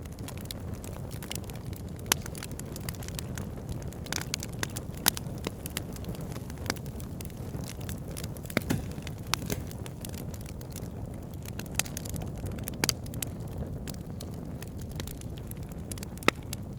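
Fire burning, crackling and popping with irregular sharp snaps over a steady low rumble.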